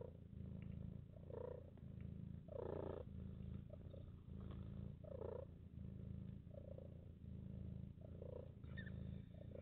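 Mother cat purring while nursing her newborn kittens, the purr breaking briefly about once a second with each breath.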